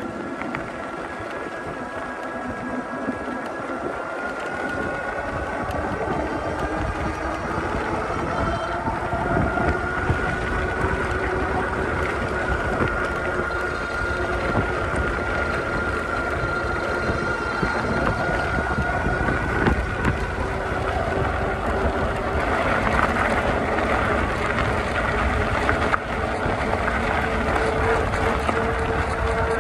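Electric fat bike riding on a gravel road: a steady whine from the bike's drive that climbs slowly in pitch as it gathers speed, over the rumble and crunch of the fat tyres on gravel and wind buffeting the microphone. The gravel noise grows rougher about two-thirds of the way through.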